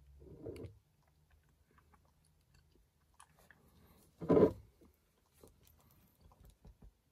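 A person chewing chocolate, with small mouth and handling clicks. One short, louder thud comes about four seconds in, as the glass whisky bottle is taken up from the wooden table.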